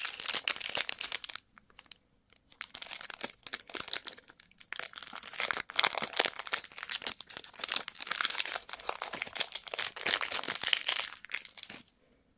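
Candy wrapper being handled and unwrapped: dense crinkling and crackling, with a few short pauses, that stops shortly before the end.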